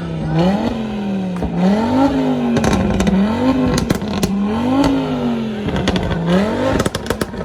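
A tuned car's engine revved in repeated blips while parked, each rev rising and falling, about every second and a half. Sharp cracks sound among the revs in the middle and near the end.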